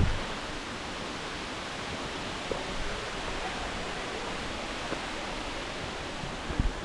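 Waterfall's falling water making a steady, even rush. Near the end come a couple of short, low thumps.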